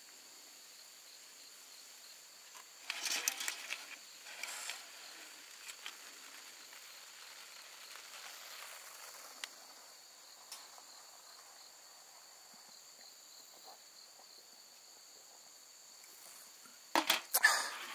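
Insects trilling steadily in the background, with short bursts of rustling or handling noise about three seconds in and again near the end.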